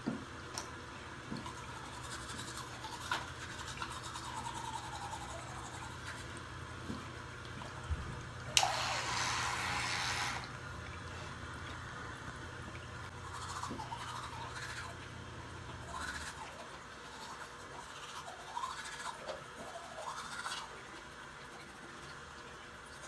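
Toothbrush scrubbing teeth, with a steady low hum underneath that stops about 16 seconds in and a two-second burst of hiss around 9 seconds in.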